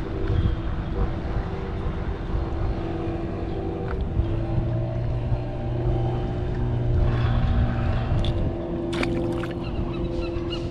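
A motor engine drones steadily, its pitch shifting slightly about four seconds in, with a few sharp clicks near the end.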